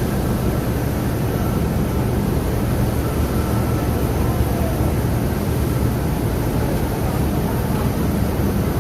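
Machinery running with a steady low drone.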